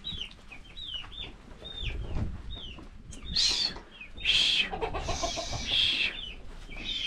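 Chickens calling: a run of short, high, falling peeps, two or three a second, then louder, harsher calls from about three seconds in.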